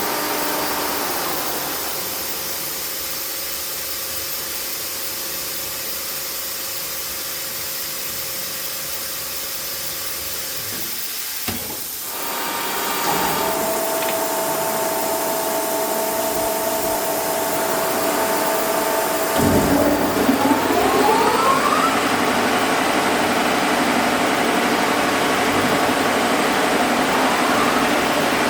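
Grindingmaster GR-3200 600 mm wide belt grinder running with a steady machine hum. About eleven seconds in there is a click and the running grows louder. About nineteen seconds in another motor starts with a rising whine, and the machine runs louder after that.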